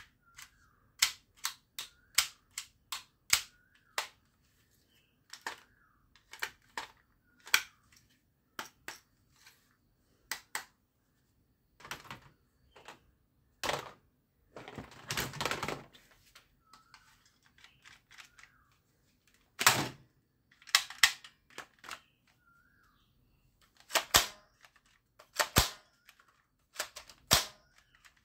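Hard plastic toy guns clicking and clattering as they are handled. A run of sharp clicks comes about once a second, then a stretch of rattling plastic around the middle as the pile is rummaged, then a few louder clacks.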